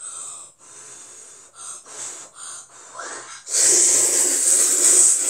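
A child blowing several short puffs of breath on steaming instant black-bean noodles (Jjapaghetti) to cool them. About three and a half seconds in comes a long, loud slurp of the noodles.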